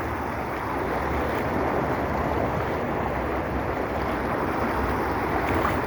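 Shallow river water rushing steadily over a submerged concrete bridge deck, an even wash of noise.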